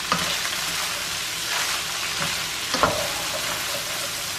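Shredded cabbage sizzling in a stainless steel skillet as a spatula stirs it, a steady frying hiss with two knocks of the spatula against the pan, the louder one near the end.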